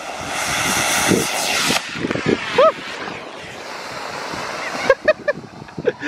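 Homemade sugar rocket motor in a PVC casing burning with a loud hiss that eases to a quieter, steady hiss and cuts off about five seconds in. The rocket has failed to lift off and burns lying on the ground.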